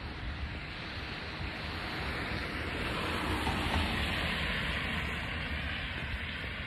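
A vehicle passing on a rain-wet road, its tyre hiss swelling to a peak a few seconds in and then fading away, over low wind rumble on the microphone.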